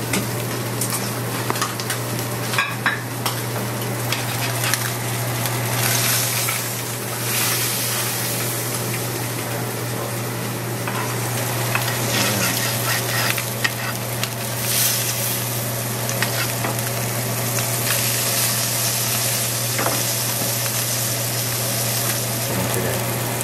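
Salmon fillet frying in butter in a nonstick pan on a gas burner: a steady sizzle with small crackles and pops, swelling louder now and then. A steady low hum runs underneath.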